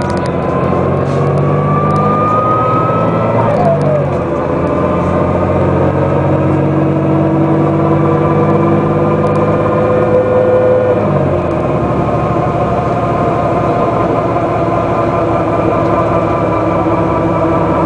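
Den Oudsten Alliance B96 city bus heard from inside the passenger cabin, its diesel engine accelerating with a rising pitch. The ZF automatic gearbox shifts up about three and a half seconds in and again about eleven seconds in, after which the engine holds a steady pitch.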